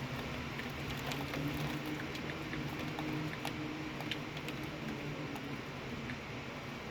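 Storm rain, a steady rush with scattered sharp ticks of drops striking, over a steady low hum.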